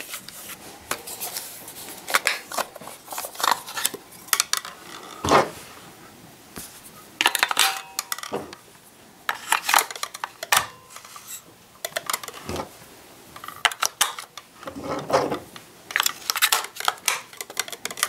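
Irregular clicks, knocks and clatter of hard plastic and metal parts being handled on a table.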